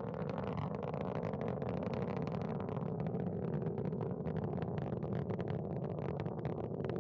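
Soyuz rocket's first stage and four strap-on boosters firing during ascent: a steady roar of rocket noise, with dense crackling throughout.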